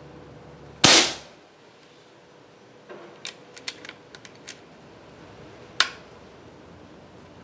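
A regulated .25-calibre Evanix Rainstorm II PCP air rifle fires once about a second in, a sharp crack that dies away quickly; the chronograph clocks the pellet at 929 fps. Light mechanical clicks follow a couple of seconds later, then a single sharper click near the end.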